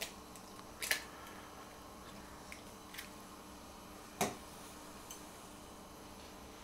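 A few faint, sharp clicks and taps of an eggshell being pulled apart over a porcelain bowl and of things being set down on the counter, in a quiet small room. The loudest tap comes a little after four seconds in.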